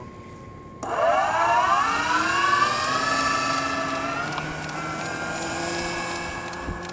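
Super Dimona 2400 RC model airplane's motor and propeller throttled up for the takeoff run: a sudden whine about a second in that rises in pitch over a couple of seconds, then holds steady.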